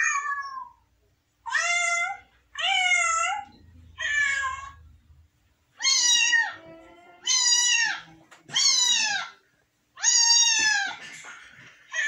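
Recorded cat meowing played back through a mobile phone's speaker: about eight meows in a row, each under a second long, with short pauses between them.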